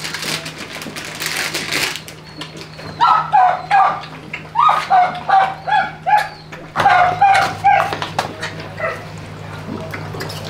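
Hungry puppies whining and yipping at feeding time, in runs of short high cries a few seconds in and again about two-thirds through, over a steady low hum.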